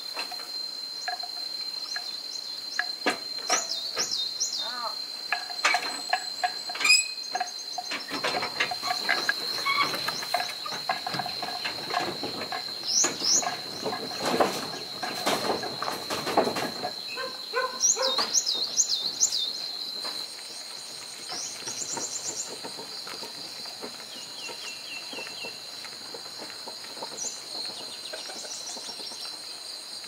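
An insect's steady, high-pitched trill runs on, with a few quick bird chirps. Scattered knocks and rattles come through the first half, then stop after about 17 seconds.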